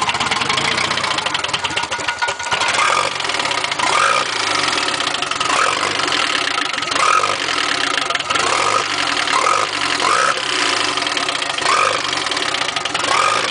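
Nissan 180SX's redtop turbocharged four-cylinder engine idling, with a strange noise from the motor: short rising chirps that recur irregularly, about once a second.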